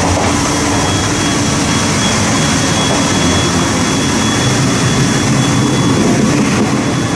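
Steady loud running noise of the JR West Thunderbird limited express electric train at speed, heard in the gangway between cars: a dense rumble and rush of wheels and air, with a thin high whine through the middle.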